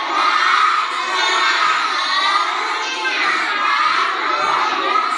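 A whole class of young children's voices raised together in chorus, loud and continuous.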